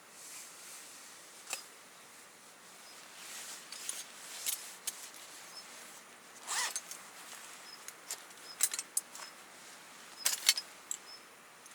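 Scattered short rustles and clicks of gear being handled, with a quick zipper-like rasp near the end, over faint, repeated high chirps.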